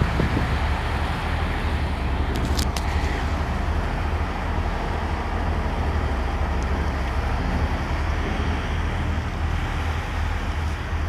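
Steady low drone of a tugboat's diesel engine under way, with an even rushing noise of wind and sea over it.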